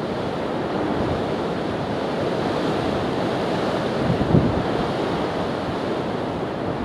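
Strong wind buffeting the microphone over the steady rush of sea surf, with one brief louder gust a little past four seconds in.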